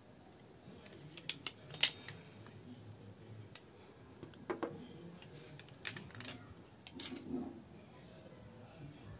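Handling noise: a series of sharp clicks and light taps as a plastic phone charger adapter is handled and set down on a tabletop. The two loudest clicks come close together under two seconds in.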